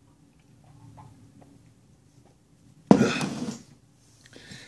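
A man drinking soda from a bottle: faint small swallowing sounds, then about three seconds in a sudden, loud, breathy exhale from his mouth after the swig that lasts under a second.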